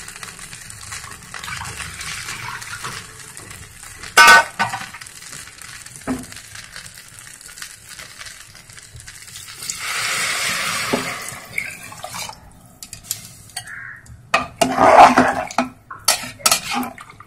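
A steel spatula stirring rice and dal frying in an aluminium pressure cooker, with a faint sizzle and a sharp knock against the pot about four seconds in. About ten seconds in, water is poured in with a hiss lasting about two seconds, then the spatula clatters and sloshes through the wet mixture.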